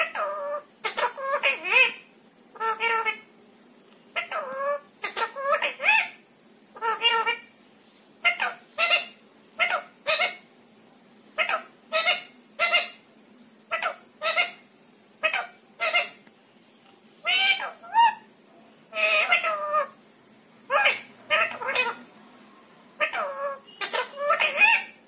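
Indian ringneck parakeet talking: a long run of short mimicked words and phrases, about one a second, with brief pauses between them.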